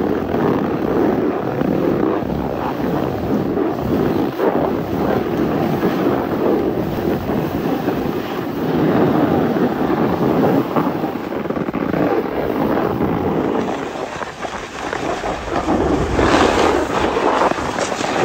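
Wind rushing over a phone microphone carried down a snowy slope, mixed with the scrape of snow under a moving snowboard. The noise is loud and steady, growing harsher about three-quarters of the way through.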